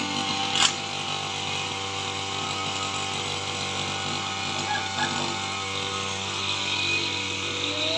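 Brush cutter's small engine running at a steady speed while cutting grass. There is a sharp click about half a second in.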